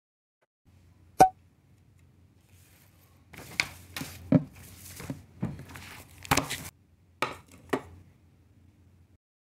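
Watermelon slices and a plate being handled on a desk: a sharp click about a second in, then a run of soft knocks and scrapes, and two more clicks near the end.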